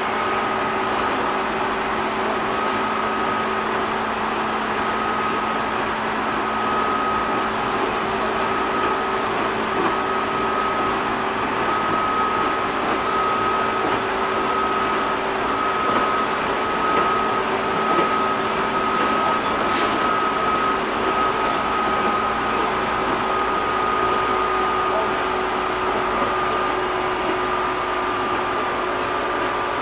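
JR 205 series 600 electric multiple unit heard from inside the car while running: a steady running noise with a level motor-and-gear whine, the train holding a nearly constant speed. There is a single sharp click about 20 seconds in.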